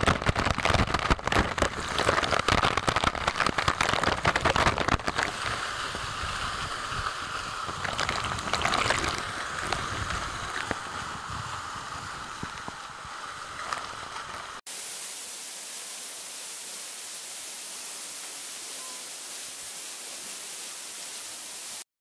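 Waterfall water splashing hard onto rocks close up, dense with sharp splashes in the first several seconds. It cuts off abruptly about fifteen seconds in, giving way to a steady, even hiss.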